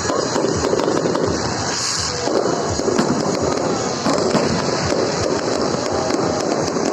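Fireworks display: a dense, continuous string of overlapping bangs and crackles from bursting fireworks.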